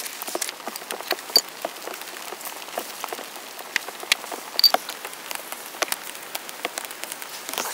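Wood campfire crackling: irregular small pops and ticks over a faint hiss, with two sharper pops about a second and a half in and near the middle.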